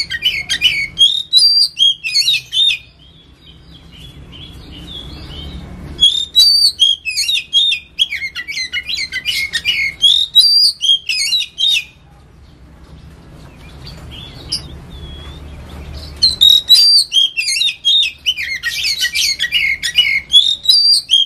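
Oriental magpie-robin singing in three bursts of rapid, varied whistled phrases, each broken off by a pause of a few seconds. A low background rumble fills the pauses.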